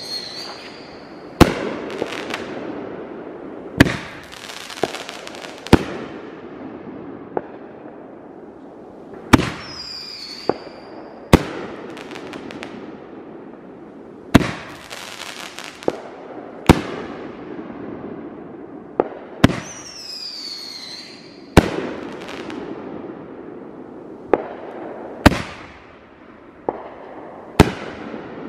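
Aerial fireworks going off: about fifteen sharp bangs spaced a second or few apart, each trailing off in a rumble. Twice, a whistle falls in pitch before a burst.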